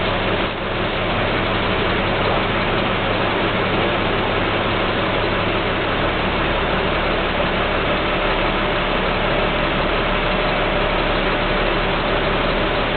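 Bus engine running steadily, heard from inside the cabin.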